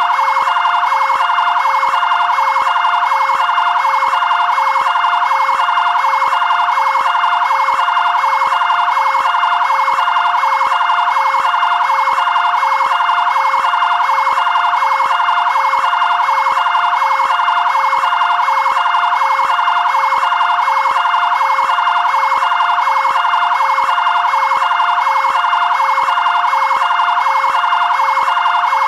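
Two-tone (bitonal) siren of a fire brigade area-command vehicle, sounding continuously and switching quickly and evenly back and forth between a lower and a higher pitch.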